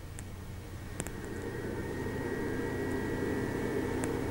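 TerraMaster F2 NAS cooling fan spinning up from its low setting to maximum after a click about a second in: a steady whir that grows gradually louder, with a thin whine coming in.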